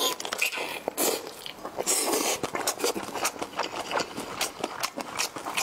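Close-miked biting and wet chewing of a braised pork intestine coated in chili oil: a flurry of short, sticky smacks and clicks, with two louder bites at the start and about two seconds in.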